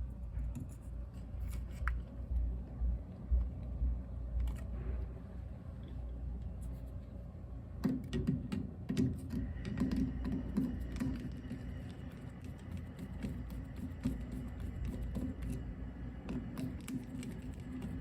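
Scattered light clicks and knocks of hands and tools working on a commercial automatic flush valve as its parts are taken off, over a low steady hum. The handling grows busier about halfway through.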